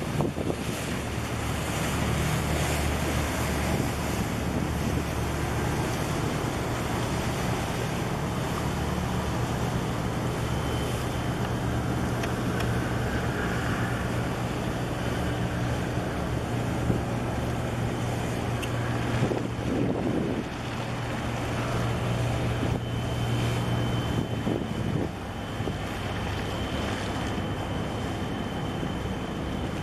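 Wind buffeting the microphone over choppy harbour water, with a steady low engine drone from the passing container ship and its tug that fades about 25 seconds in.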